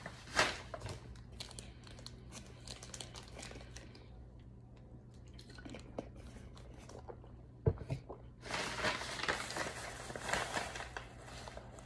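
Faint close-up crunching and crackling from a dry, powdery white mixture being eaten and worked in a plastic cup. There is a single knock about two-thirds of the way in, then a denser stretch of crunching and scraping near the end.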